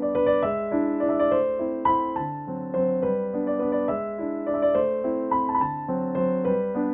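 Background piano music: a gentle melody over chords with notes struck in a steady flow.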